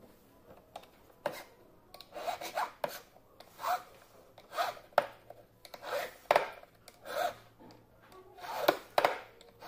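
Hand file rasping over the edge of a silver ring's bezel in short strokes, about ten of them at roughly one a second, starting about two seconds in.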